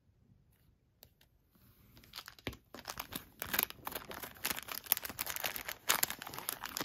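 Clear plastic bag crinkling and rustling as it is pulled open and worked off a top-loaded trading card. It starts after about two seconds of near quiet and keeps on as rapid crackling until the end.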